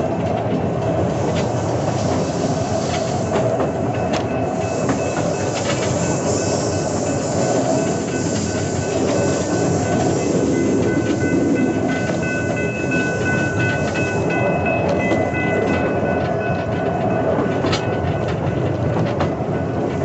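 Rail vehicle rolling along track: a steady wheel rumble with a few sharp clicks at rail joints, and thin, high wheel squeal through the middle as it rounds a curve.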